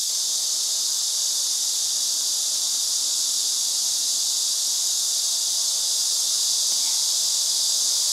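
Chorus of summer cicadas: a steady, dense, high-pitched drone that does not let up.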